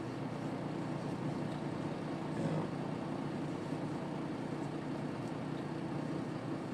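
Steady low hum inside a semi-truck's sleeper cab: the truck's engine running, with the cab's air-conditioning fan blowing.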